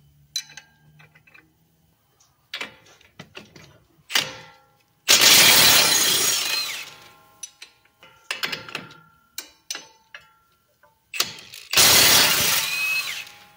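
Cordless impact wrench hammering on the strut-to-knuckle bolt nuts while a combination wrench holds the bolt heads, loosening them in two bursts, the first about five seconds in and the second near the end. Short metal clinks of wrenches being fitted to the bolts come before and between the bursts.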